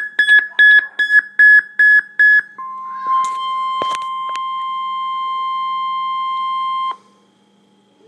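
Emergency alert tones from a weather radio's speaker: rapid high beeping, about three beeps a second, stops about two and a half seconds in, followed by a steady single-pitch warning alert tone that holds for about four seconds and cuts off suddenly, announcing a broadcast severe thunderstorm warning.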